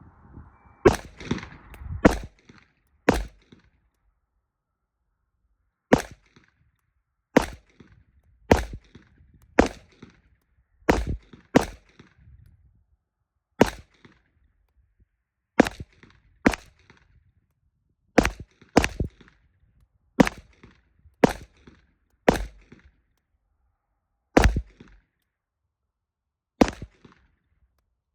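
Glock 19X 9mm pistol firing about twenty single shots at a slow, uneven pace, half a second to two seconds apart.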